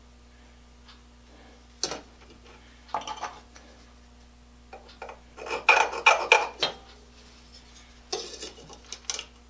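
Metal combination square and scriber clinking and scraping against a steel plate while a line is marked out, in several short bursts, the longest and loudest a little past the middle.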